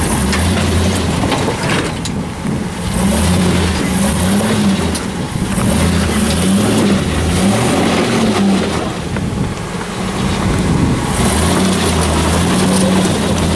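Rock buggy engine revving in repeated bursts as it crawls over boulders, its pitch rising and falling again and again, with short lulls about two seconds in and near ten seconds.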